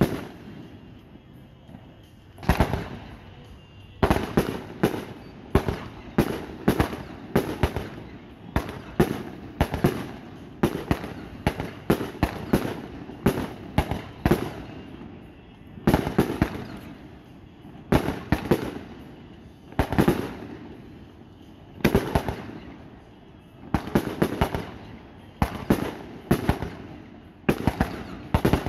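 Aerial firework shells bursting in quick succession: after a short lull, sharp bangs come one to two a second, each trailing off in a short echo.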